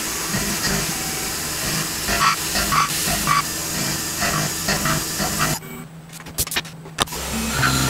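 Tormach PCNC 1100 CNC mill cutting a 4140 steel muzzle brake blank held in its 4th-axis chuck, with a steady hiss of mist coolant spraying over the cut. The noise drops away about five and a half seconds in, with a few sharp clicks, and starts again near the end.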